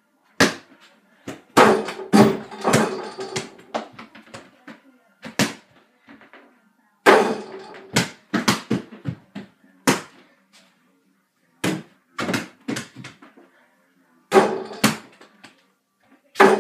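Mini basketball knocking against a small over-the-door hoop's backboard and rim and bouncing off the floor and walls of a small room. The knocks and thuds come in clusters of several quick hits, with short quiet gaps between the shots.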